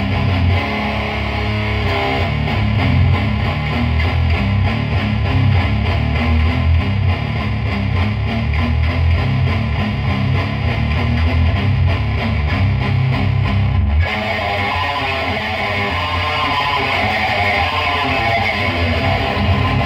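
Heavily distorted electric guitar tuned to C standard, played through a Lone Wolf Audio Caveman distortion pedal at full gain into a Fender Deluxe Reverb amp and a 2x12 cabinet. It plays a continuous heavy riff with low chugging, and about fourteen seconds in the deep low end drops away as the playing moves to higher notes.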